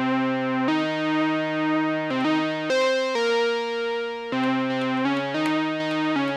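Elektron Analog Four MK2 analog synthesizer playing a factory preset from its keyboard keys. Held notes change pitch about every second in a slow melodic line.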